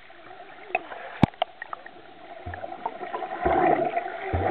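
Swimmer's kicks and strokes heard through an underwater camera: a few sharp clicks, then churning water and bubbles with three dull thumps, growing louder about three and a half seconds in.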